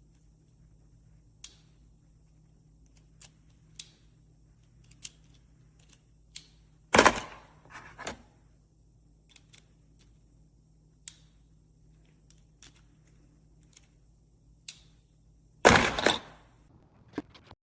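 Small metal sockets and extensions of a 1/4-inch drive socket set being handled, giving scattered sharp clicks and clacks. Two louder clatters come about seven seconds in and near the end.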